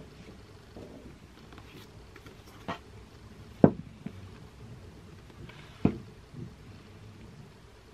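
Books being handled at a desk: a few short knocks and taps as a book is taken from a stack and held up. The loudest knock comes about three and a half seconds in and another about six seconds in, with light rustling between.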